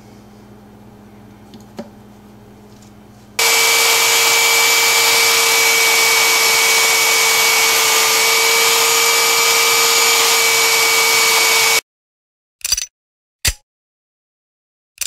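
A small benchtop belt sander runs steadily with a whine while a square wooden block is sanded on its belt. It comes in suddenly about three seconds in and stops dead about twelve seconds in. Before it there is only a low hum with one click, and after it four short sharp bursts.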